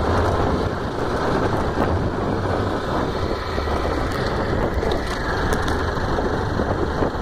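Small motorcycle's engine running steadily while the bike is ridden along a rough, cracked paved road, with tyre and road noise.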